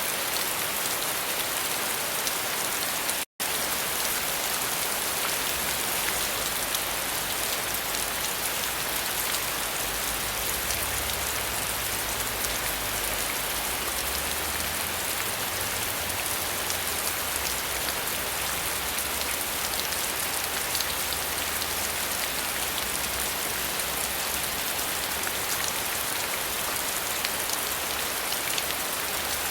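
Steady rain falling and pattering on surfaces, a constant even hiss of drops. The sound cuts out completely for an instant about three seconds in. A low rumble runs underneath through the middle of the stretch.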